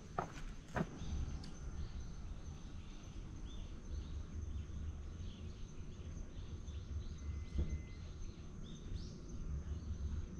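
Outdoor ambience of small birds chirping, a run of short repeated notes through the middle, over a low steady rumble. A few sharp footstep taps sound in the first second.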